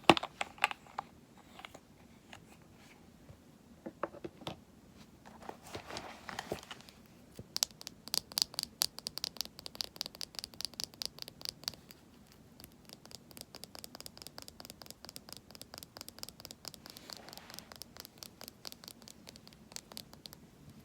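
Scratching on a cosmetics container: a few scattered taps and clicks, then from about seven seconds in a fast run of fine scratchy ticks that carries on, a little quieter, until near the end.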